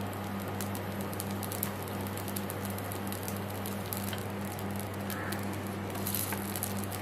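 Dosa batter frying in sesame oil on a nonstick tawa: a light, steady sizzle with fine crackling, over a steady low hum.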